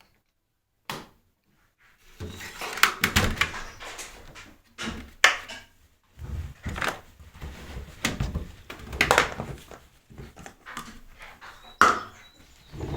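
Towels and a laundry basket being handled, with irregular rustling, soft thumps and a few sharp knocks starting about two seconds in.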